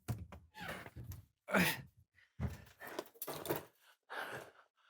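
A man's wordless vocal sounds: a string of short sighs, groans and huffs, about eight in all, with pauses between them.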